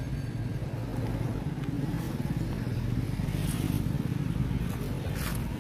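Steady low hum of an engine running, swelling a little in the middle, with a couple of brief scratchy noises over it midway and near the end.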